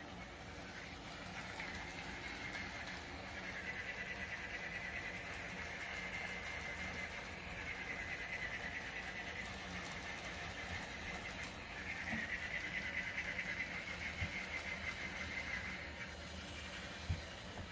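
Battery-operated walking plush toy dog running: a small motor and gears whirring steadily with a fast rattling pulse, growing louder about twelve seconds in.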